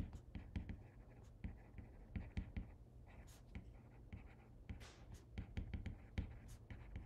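Stylus tip tapping and sliding on a tablet's glass screen during handwriting: faint, irregular taps with a couple of longer scratchy strokes about three and five seconds in.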